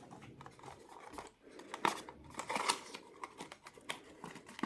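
Small cardboard gift box and its contents being handled and opened: scattered light clicks and taps with brief crinkling rustles.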